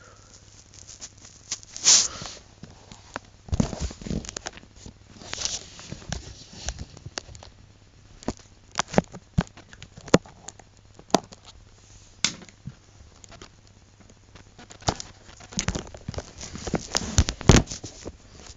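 Handling noise: irregular clicks, knocks and rustles of a marker, paper and the recording device being moved about on a table, the loudest about two seconds in and again near the end.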